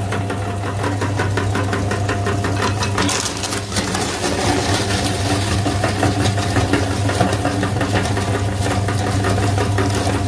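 Electric grinder's motor running steadily with a hum and a fast, even rattle as it crushes its contents.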